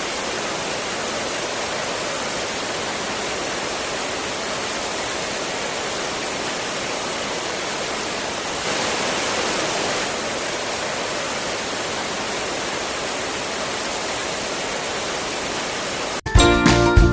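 Running water rushing steadily, a little louder for a second or so just past the middle. Music starts near the end.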